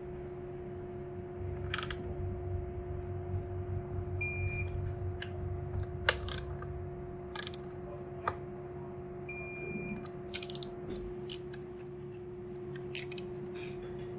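Digital torque wrench beeping twice, each a short high tone about half a second long, about five seconds apart, signalling that the set torque of 10 newton metres has been reached on aluminium banjo bolts. Sharp clicks of tools and fittings come in between, over a steady hum.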